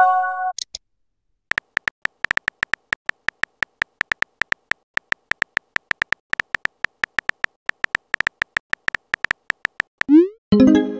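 Phone keyboard key-tap clicks, a quick steady run of short ticks, as a text message is typed. A short message-sent chime sounds at the start, and a rising swoop followed by a chime sounds near the end as the message is sent.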